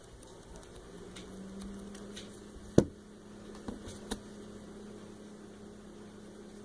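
Plastic Play-Doh mould and toy pieces handled on a tabletop: one sharp knock about three seconds in, then two lighter clicks, over a faint steady hum.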